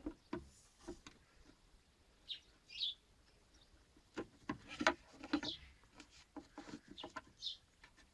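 Small birds chirping on and off, over scattered light clicks and knocks from hand tools working at the tailgate's gas-strut ball mount. The loudest knock comes about five seconds in.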